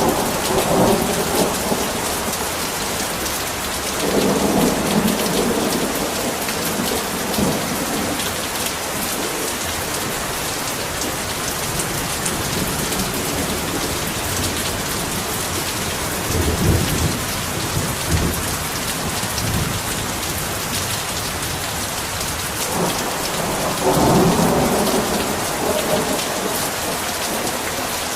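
Heavy rain falling steadily, with rolls of thunder rumbling three times: a few seconds in, around the middle, and again near the end.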